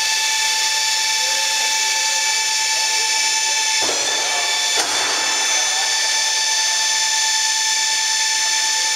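Steady high-pitched whine of a hydraulic pump pressurising a Boeing 737's hydraulic system, which powers its flaps, spoilers and thrust reversers. Two short knocks come about four and five seconds in.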